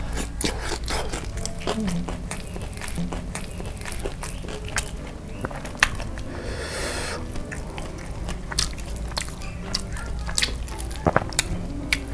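Close-miked biting and chewing of crispy fried chicken coated in sticky sauce: irregular crunches of the skin with wet, smacking mouth sounds. About seven seconds in there is a longer rasping stretch as the chicken is pulled apart by hand.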